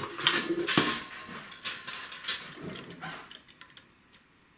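Aluminium gear-door skins and the copper clecos pinned in them clinking and rattling as they are handled and lifted, a string of sharp metallic clicks with one louder clack under a second in, fading out about three seconds in. A few faint ticks follow in near silence.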